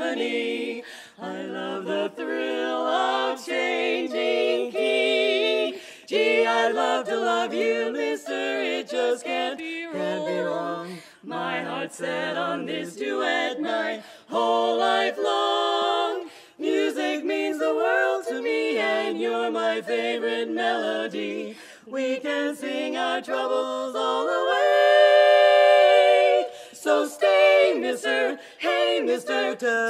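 Women's barbershop quartet singing a cappella in four-part harmony. Near the end they hold one long, loud chord.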